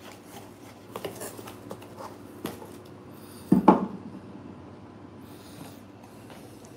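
Light handling noises of small objects and a small cardboard box on a wooden surface: scattered taps and clicks, one louder knock about three and a half seconds in, and a brief rustle, over a faint steady hum.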